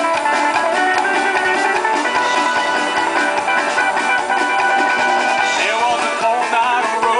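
Live band playing loud, steady music: strummed acoustic guitars, upright bass and drum kit.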